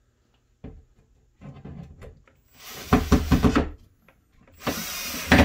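Cordless drill/driver running in two short bursts as it drives a Euro screw through a metal drawer slide into the particleboard cabinet side. The first burst, about a second long, comes midway and the second comes near the end, with a few light handling knocks before them.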